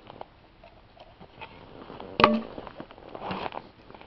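One sharp wooden knock about halfway through, with faint clicks before it and a short scraping rustle about a second later. The sounds come from a composite knife being batoned and worked through a split of frozen wood on a chopping block.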